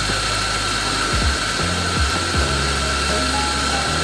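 Mazzer SuperJolly V Pro espresso grinder's motor running steadily with a constant whine as it grinds a dose of coffee beans.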